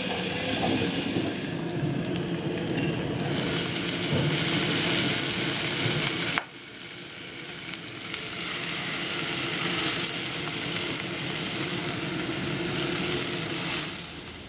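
Food frying and sizzling in a metal pot on a gas burner, with a spoon stirring. The sizzle drops off abruptly about six seconds in and then goes on a little quieter.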